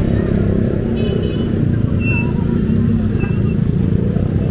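Street traffic: motor vehicle engines running, a steady low rumble.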